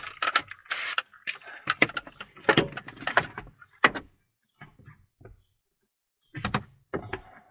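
Plastic squeegee scraping across wet window-tint film on glass in quick short strokes, bunched in the first few seconds and again near the end.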